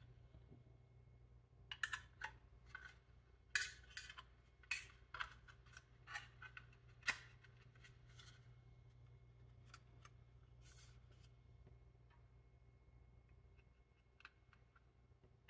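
Light clicks, taps and short scrapes of small computer parts being handled, bunched between about two and eight seconds in, with a couple more near eleven seconds, over a faint steady hum.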